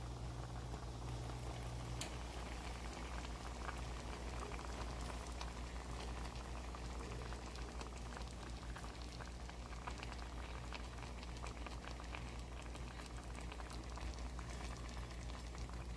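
Pan of biryani rice cooking on the stove: a steady bubbling hiss with fine crackles, over a low steady hum.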